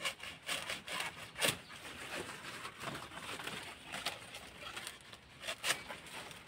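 Dry banana leaves and the bag wrapped around the banana bunch rustling and crackling as they are gripped and pulled, with several sharper crackles.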